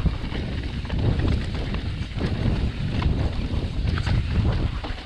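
Wind buffeting the microphone over the rumble of mountain bike tyres rolling fast down a rocky dirt trail, with scattered clicks and knocks.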